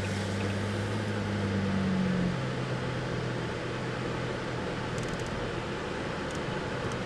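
Car engine and tyre noise heard from inside the cabin while driving: a steady low drone over road rumble, its engine tone dropping in pitch about two seconds in.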